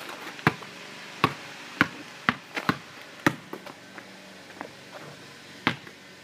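Basketball dribbled hard on a floor during a crossover dribble move: a run of sharp bounces about every half second, then a pause and one more bounce near the end.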